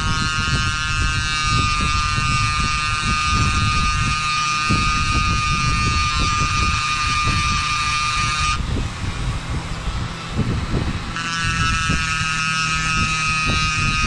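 Flex-shaft Dremel rotary tool running at a fairly slow speed, a high whine as its small round cutting bit cuts jigging marks into a bone knife handle. It runs for about eight and a half seconds, stops for about two seconds, then runs again. A shop fan makes a steady low rumble underneath.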